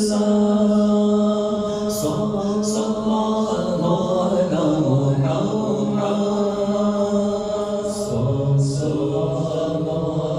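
A man chanting durood (salawat on the Prophet, "sallallahu alaihi wasallam") in a slow, drawn-out melody, holding each note for a couple of seconds before stepping to the next, with the hiss of the "s" sounds coming through at intervals.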